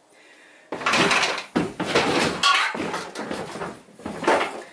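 Irregular scraping and knocking of a heavy cast-iron Cummins 6.7 cylinder head being shifted and handled against the engine block, in five or so rough bursts starting about a second in.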